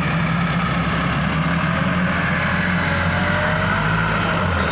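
Massey Ferguson 375 tractor's diesel engine running steadily and working hard while the front loader bucket pushes into sand.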